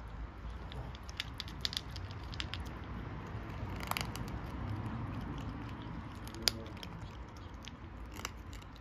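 Two kittens crunching dry kibble from a metal plate: irregular crisp crunches and clicks of chewing, with one sharper click about six and a half seconds in.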